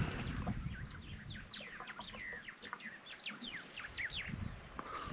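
Wild birds chirping: a quick, dense series of short, sharp chirps that dies away about four seconds in, over a low rumble.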